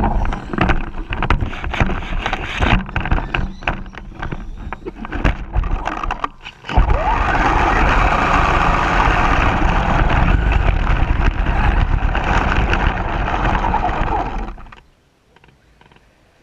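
RC car driving with a GoPro mounted on it: bumps and rattling jolts at first, then about eight seconds of loud, steady rushing noise from wind and the moving car on the microphone, which cuts off suddenly near the end.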